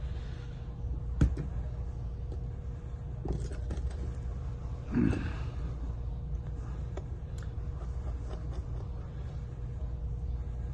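Small sharp clicks and taps of hand tools and small phone parts being handled during disassembly, the loudest one a little over a second in. There is a short, louder sound about five seconds in, over a steady low hum.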